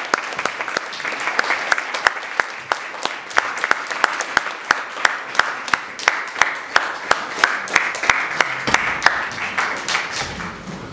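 Audience applauding, with one nearby person's claps standing out sharp and regular, about three a second. The applause dies away near the end.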